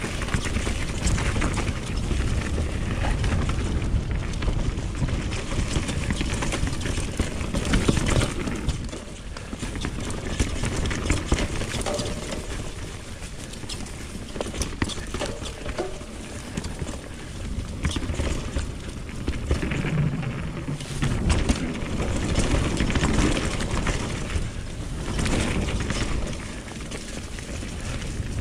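Mountain bike riding down a dirt flow trail: steady tyre and wind noise with frequent rattles and clicks as the bike goes over bumps and roots.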